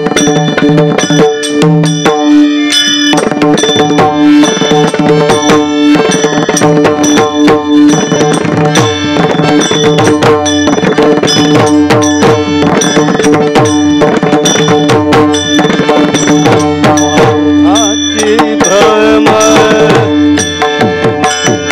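Kirtan accompaniment without singing: a hand drum played in a fast, dense rhythm over steady held notes, with bright metallic strikes. A wavering pitched line enters about eighteen seconds in.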